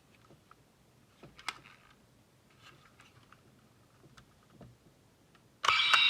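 Plastic toy being handled: faint clicks and taps, with one sharper click about a second and a half in. Near the end the Oneness Raise Buckle suddenly starts playing a loud electronic sound effect.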